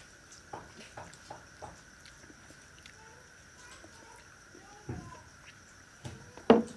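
Close-up eating sounds: a few short wet mouth clicks of chewing rice and fish curry, with faint pitched calls in the background. A single sharp knock near the end is the loudest sound.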